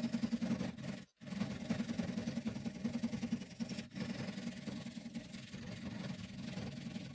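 Hand file rasping back and forth over a hatchet head, trimming the protruding wooden wedge and pin flush with the top of the eye, with a brief break about a second in.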